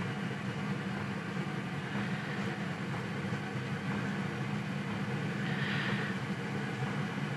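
Diesel air heater running with a steady, even fan hum. A brief soft noise comes about six seconds in.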